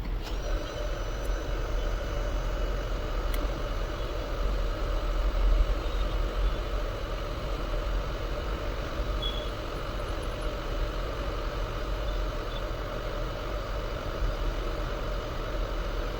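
Hot air rework station blowing steadily with an even whir and hiss, switched on with a click just after the start, as used to desolder a phone's display connector.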